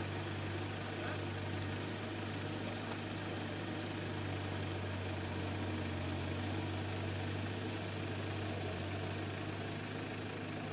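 Small farm tractor's engine running steadily in place, a constant low hum that does not rise or fall.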